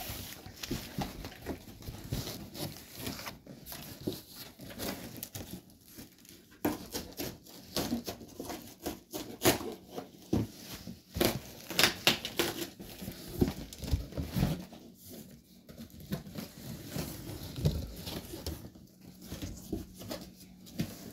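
Thin packing wrap and cardboard box being handled while a couch cushion is unpacked: irregular rustling and crinkling with scrapes and a few louder knocks.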